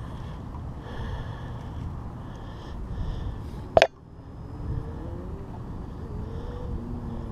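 Wind buffeting the camera microphone over choppy bay water, with one sharp knock about four seconds in. After the knock a faint engine tone rises and falls in pitch, like a boat motor some way off.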